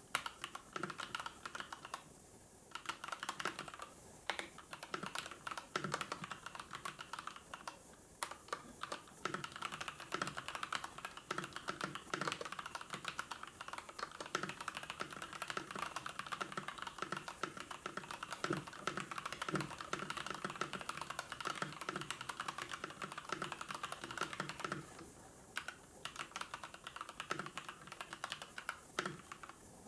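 Typing on a computer keyboard: a steady, fast stream of key clicks, with a couple of short pauses.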